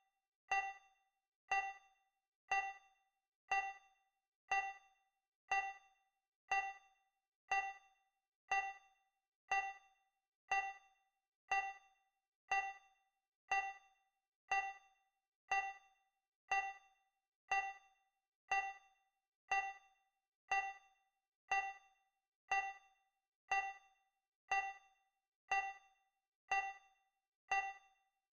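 Countdown timer tick sound effect: a short pitched ding once every second, each fading quickly, marking the seconds as the timer counts down.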